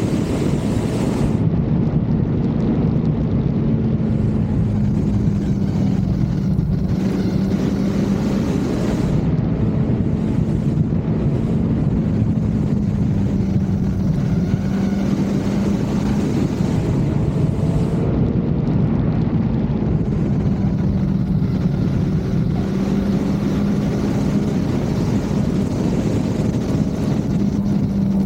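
Kawasaki Z900 inline-four engine running at a cruising pace, its note rising and falling a little as the throttle changes through the bends, with steady wind rush over the camera microphone.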